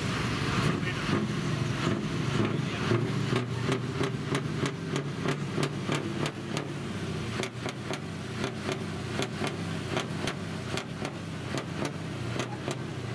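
Heavy truck's diesel engine idling steadily, with a fast, even clicking of about three or four ticks a second over it.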